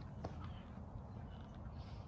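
Quiet outdoor ambience: a steady low rumble with a single faint click about a quarter second in.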